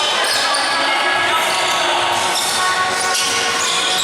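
Ongoing sounds of an indoor basketball game: a basketball bouncing on the court amid a steady background of game noise.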